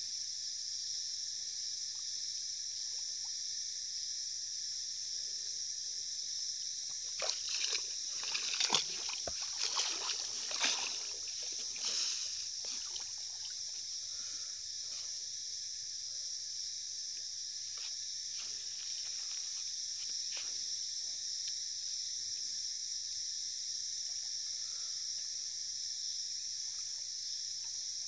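Water splashing and sloshing as a person wades through weedy lake shallows, loudest in a cluster from about a quarter to nearly halfway through, with a few smaller splashes later. A steady high insect chorus carries on underneath.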